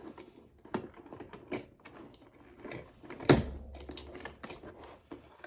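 Small clicks, taps and scrapes from fingers picking at a cardboard advent-calendar compartment to get a tiny item out, with one louder knock a little past the middle.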